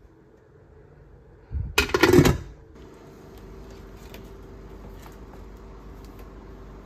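A brief, loud clatter of kitchenware, a metal utensil or lid knocking against a pot, about two seconds in. It is followed by a steady faint hum.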